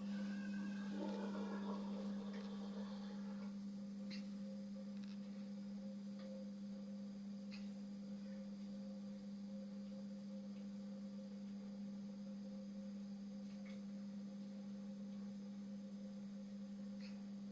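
Indesit washing machine's pump starting suddenly and running with a steady hum, with water splashing through it for the first few seconds.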